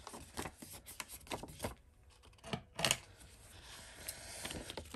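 Small scissors snipping a sticker: a quick run of sharp snips, then two more a little over halfway through, followed by softer paper handling.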